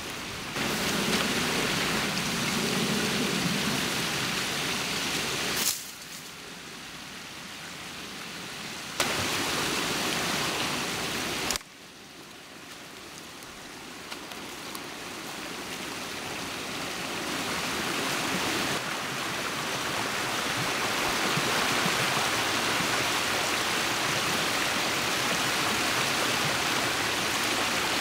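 Creek water rushing through a breach pulled open in a beaver dam: a steady hiss that drops away suddenly twice in the first half, then grows louder over about ten seconds as more water pours through.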